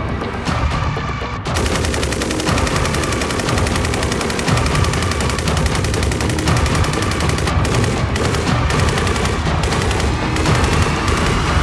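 SAR 762 MT 7.62 mm machine gun firing automatic, a dense unbroken stream of shots that starts about a second and a half in and keeps going.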